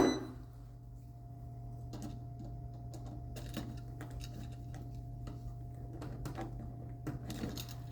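Scattered light clicks and scrapes from wires and a light switch being handled at an electrical box, over a steady low hum.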